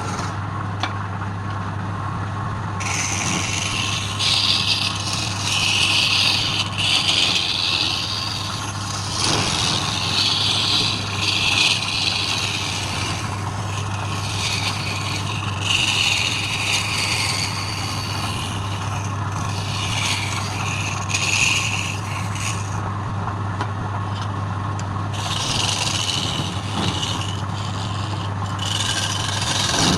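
Wood lathe running with a steady motor hum, while a tool is pressed against the spinning workpiece in repeated scraping passes that come and go every few seconds, starting about three seconds in.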